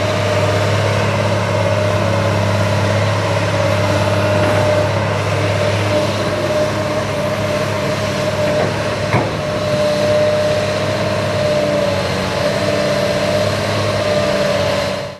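Komatsu PC300LC excavator's diesel engine running steadily as the machine digs, with a steady higher whine above the engine note. A single sharp knock sounds about nine seconds in.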